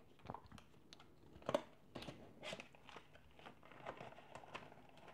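Clear plastic packaging crinkling and crackling as it is handled and pulled open: faint, scattered crackles and clicks, the loudest about one and a half seconds in.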